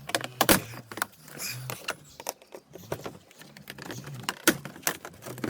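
Irregular clicks, knocks and rattles of hand tools and plastic trim parts being worked loose on a car's front end, with the sharpest knock about half a second in.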